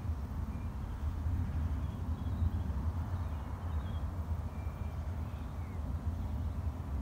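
Wind buffeting the microphones as an unsteady low rumble, with a few faint, short bird calls through it.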